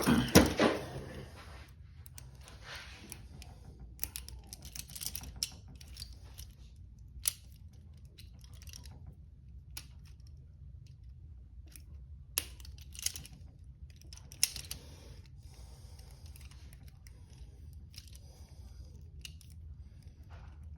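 Handcuffs being picked open with a single lockpicking tool: small metallic clicks and light scraping at the keyhole, with a few sharper clicks about 7, 12, 13 and 14 seconds in. A brief louder noise comes at the very start.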